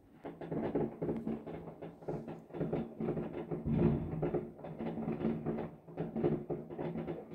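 Music with a steady beat and held chords, playing in the room.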